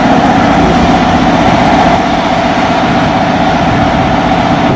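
A loud, steady engine running close by, with a low hum under it, cutting off suddenly at the end.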